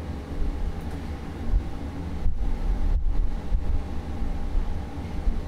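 Steady low rumble and hum of a freight lift cabin, heard from inside the lift.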